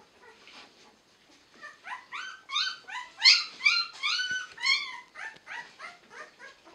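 Newborn puppies, nine days old, crying in a run of short high squeals, about three a second, each rising in pitch then holding. The cries begin about a second and a half in, are loudest a little past the middle and trail off near the end.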